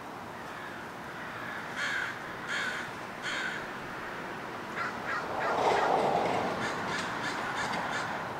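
American crows cawing: three separate caws about two seconds in, then a quicker run of short caws through the last few seconds. A brief rushing noise, the loudest thing here, swells and fades during that run.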